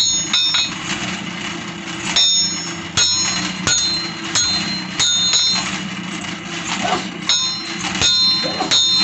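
Hammer blows on a steel machete blade against an anvil, about a dozen irregular strikes, some in quick pairs, each with a bright metallic ring. A steady low hum runs underneath.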